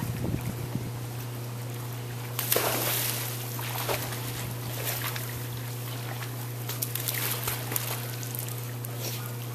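A dog splashing as it jumps into a backyard pool and paddles, with one loud splash about two and a half seconds in and smaller splashes after. A steady low hum runs underneath.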